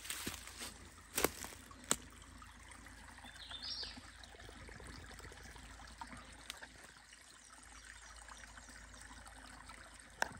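A small brook trickling steadily. A few sharp clicks come in the first two seconds, and a brief high chirp about three and a half seconds in.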